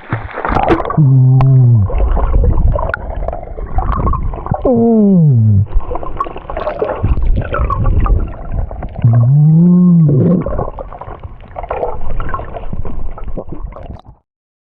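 Humpback whale giving three long moaning calls: the first two fall in pitch and the third rises and then falls. Loud gurgling, rumbling water sound runs underneath, and it all cuts off suddenly near the end.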